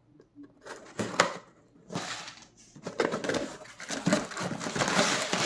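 Speaker packaging being handled in a small room: rustling and scraping of cardboard and plastic, with a sharp knock about a second in and steadier handling noise in the second half.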